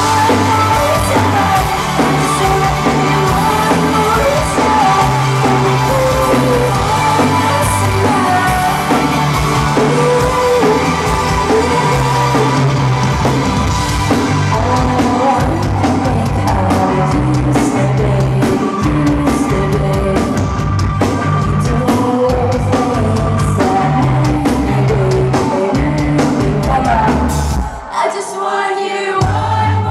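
A live rock band plays loudly through a club PA, heard from within the crowd: a female lead vocal over electric guitars, a steady bass line and drums. Near the end the bass and drums drop out for about a second, then come back in.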